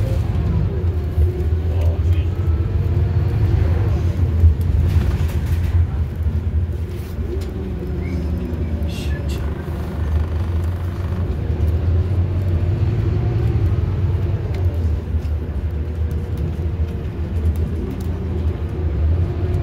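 Scania K230UB bus's five-cylinder diesel engine and ZF automatic gearbox heard from inside the saloon, a steady low rumble with a whine that rises and falls several times as the bus accelerates and changes gear.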